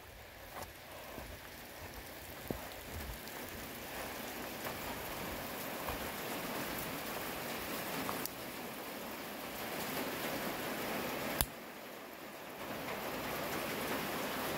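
Heavy rain pouring down steadily, growing louder over the first several seconds, with one sharp click about eleven seconds in.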